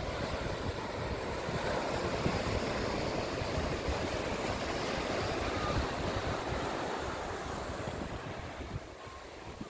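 Ocean surf washing onto a sandy beach in a steady rush, with wind buffeting the microphone; the rush eases off near the end.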